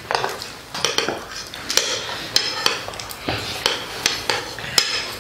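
Metal spoons clinking and scraping against ceramic plates of rice as people eat: about a dozen sharp clinks at irregular intervals, each with a brief ring.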